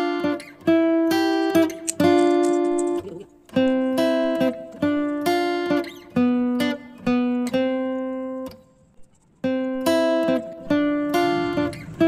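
Background music: a melody of plucked guitar notes, each struck sharply and ringing out, with a short break about nine seconds in.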